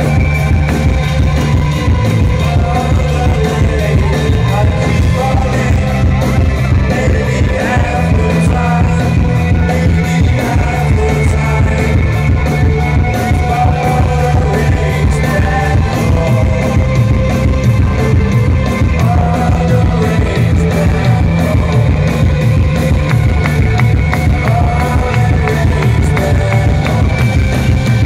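Indie rock band playing live through a PA, with electric guitars, bass and drums under a sung vocal, heard loud and bass-heavy from the audience.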